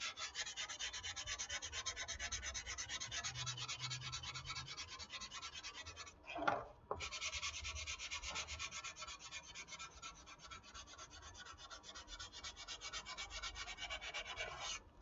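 Sandpaper rubbed by hand in quick back-and-forth strokes over a foam RC airplane wing, smoothing the roughened foam left after steaming out a dent. The sanding pauses briefly about six seconds in, then carries on.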